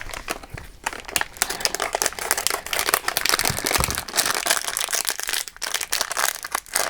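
Crinkly plastic blind-bag packaging being handled and cut open, giving a continuous rustling crackle.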